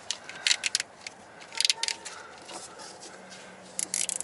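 Nylon zip tie being pulled tight around a wire sleeve, its teeth ratcheting through the head in three short bursts of quick clicks.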